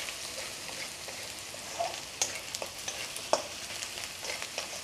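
Chopped vegetables sizzling in oil in a wok on high heat while a spatula stirs them, with scattered clicks of the spatula against the pan.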